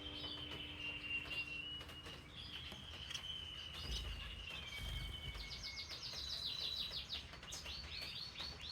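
Young pet finches and canary calling: thin whistled notes held for a second or more and stepping between pitches, then, about halfway through, a quick run of short rising chirps.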